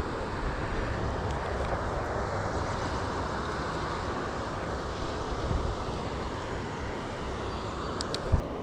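Steady rush of water pouring out of a lake outflow swollen by heavy rain, with low wind buffets on the microphone, once about halfway through and again near the end.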